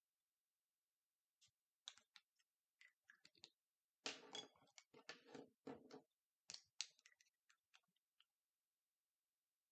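Small clicks and rustles from a pen and a paper worksheet being handled on a table: a few scattered ticks, a denser rustling cluster about four to six seconds in, then a few more clicks.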